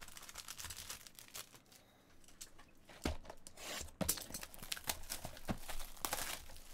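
Plastic shrink wrap being torn and crinkled off a sealed baseball trading-card box. Two sharp knocks come about three and four seconds in.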